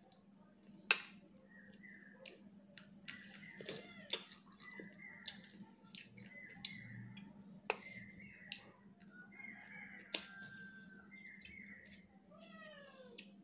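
A cat mewing again and again in short, high calls, with a longer wavering meow near the end, over sharp wet lip smacks and chewing from someone eating by hand.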